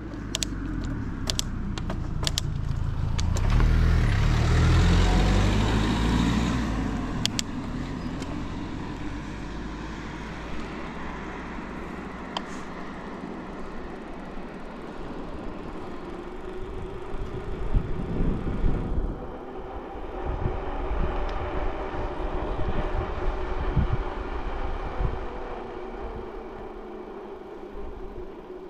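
A motor vehicle passes close by, rising to its loudest about five seconds in and then fading, over a steady rumble of road and wind noise.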